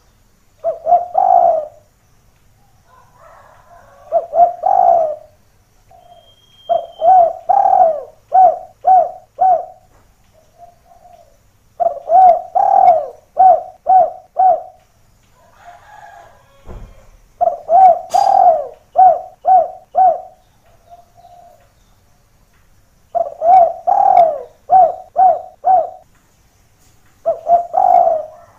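Spotted dove cooing in repeated phrases, each a drawn-out first coo followed by three or four short, evenly spaced coos, with a phrase coming about every five seconds.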